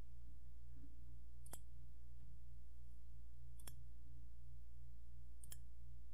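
Three short, sharp computer-mouse button clicks about two seconds apart, over a steady low electrical hum.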